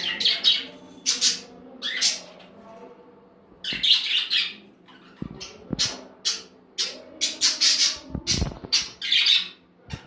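Pet budgerigars and cockatiels squawking: about twenty short, harsh calls in irregular bunches, some rapid-fire and some a second or so apart.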